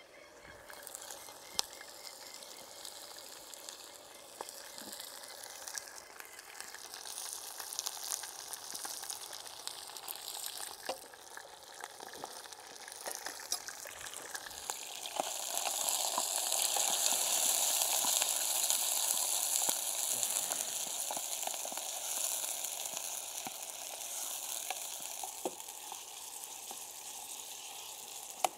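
Chicken pieces frying in a small pan over a wood fire, a steady sizzle that grows much louder for several seconds from about halfway through and then eases, with a few faint clicks.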